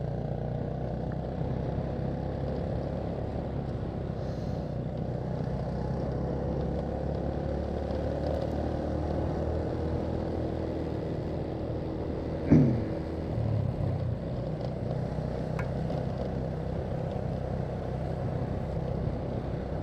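Motorcycle engine running steadily while riding on the road. About two-thirds of the way through there is one brief loud sound whose pitch drops quickly.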